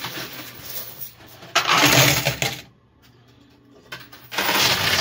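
Coin pusher machine: quarters clattering and clinking on the metal playfield and pusher shelf, in two loud rattles about a second long, one near two seconds in and another near the end, separated by about a second of quiet.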